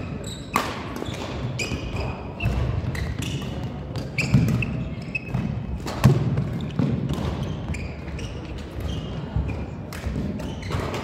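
Badminton rally sounds: sharp racket strikes on the shuttlecock every second or two, short shoe squeaks on the court floor and thudding footfalls.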